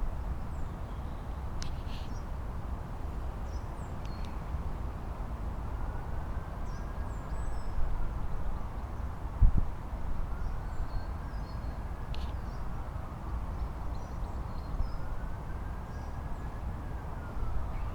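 Outdoor ambience: a low rumble, with small birds chirping here and there. A distant siren wails slowly up and down three times, and there is one sharp tick about halfway.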